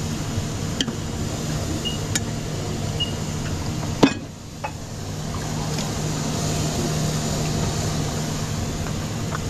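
Steady mechanical hum of a working kitchen with scattered light clicks and clatter, and one sharp knock about four seconds in, after which the hum briefly drops away.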